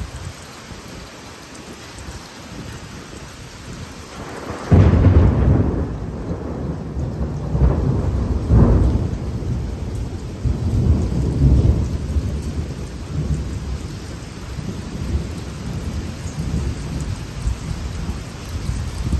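Heavy rain falling steadily. About five seconds in, a sudden loud clap of thunder breaks in and rumbles on with several swells, slowly dying away.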